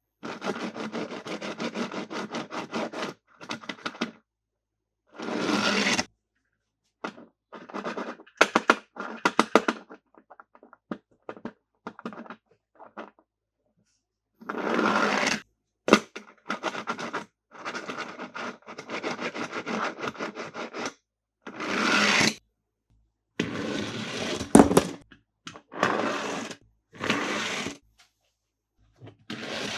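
Close-miked handling of plastic toy packaging and toy cars: bursts of rustling, scraping and rapid clicking, each cut off abruptly into silence.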